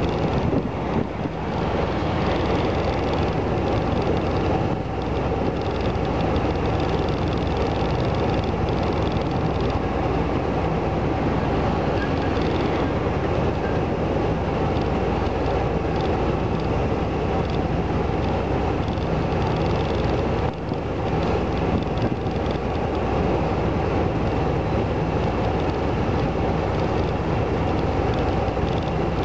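Steady running noise of a vehicle, a constant rumble and hiss with no clear changes apart from a brief dip about twenty seconds in.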